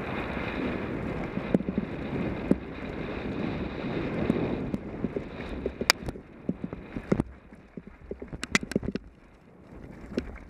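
Mountain bike descending a rough dirt singletrack: wind rushing over the helmet camera and tyres rolling on dirt, with sharp clicks and rattles from the bike over bumps. About six seconds in the wind dies down, leaving mostly the knocks and rattles.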